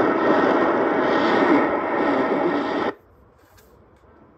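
Shortwave radio receiver putting out a loud, steady rush of rasping static-like noise for about three seconds, which cuts off abruptly and leaves only a faint hiss.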